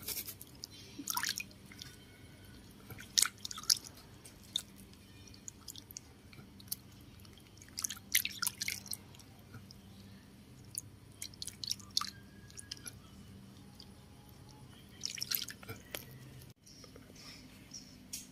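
Water splashing and dripping in a plastic basin as baby monkeys paddle about in their bath, in short bursts of light splashes every few seconds.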